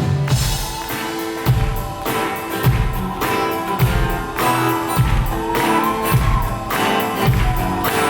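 Band music playing an upbeat instrumental passage, with sustained notes over a drum beat and a note that slides in pitch about six seconds in.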